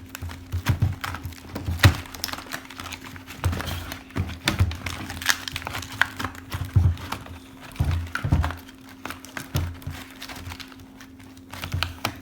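Cardboard and plastic toy packaging being handled and pulled apart: irregular knocks, taps and crinkles, over quiet background music with a steady low tone.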